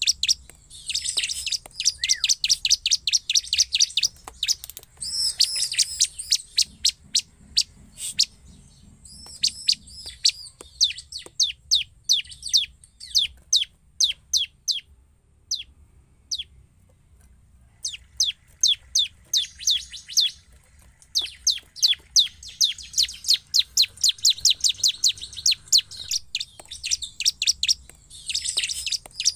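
Bar-winged prinia (ciblek) singing vigorously: long runs of sharp, high chips at about seven a second, broken by a few warbled phrases. The song pauses for a few seconds midway, then resumes in full.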